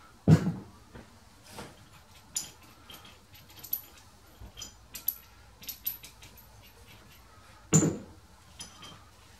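Small metal clinks and jangles from a lifting sling's steel ring and hook being worked around a lathe's cast-iron four-jaw chuck. Two heavier knocks stand out, one just after the start and one near the end.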